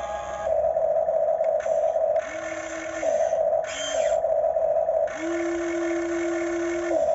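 Huina radio-controlled model excavator's electric motors whining in several separate runs as the boom and bucket move, the longest about two seconds near the end. Each run rises in pitch as it starts and falls as it stops, over a steady hum.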